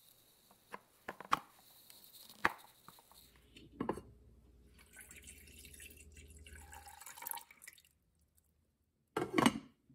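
Clicks and clinks as the glass lid of an electric hot pot is handled and lifted off, then water pouring steadily into the nonstick pot for a few seconds. A short, loud clatter comes near the end.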